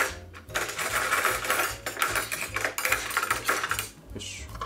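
A paper towel being crumpled in the hand: a dense crackling rustle of many quick ticks lasting about three seconds, after a sharp click at the start.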